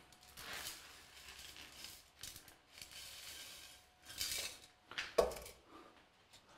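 Light handling noises at a work table: irregular scrapes and rustles, with a sharp click about five seconds in.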